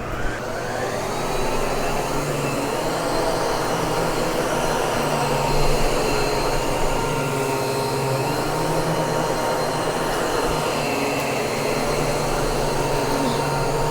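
Dyson Ball Animal 2 upright vacuum cleaner switched on in carpet mode: its motor spins up in a rising whine over the first second or so, then runs steadily as it is pushed over a rug.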